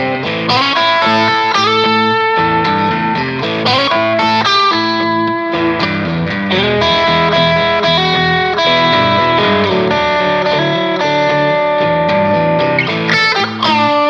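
Background music led by an electric guitar with effects, playing held notes that change every second or so, with a few sliding notes.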